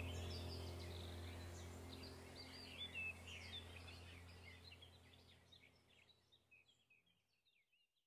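Small birds chirping over a low steady hum, the whole fading out to silence over the first five seconds or so.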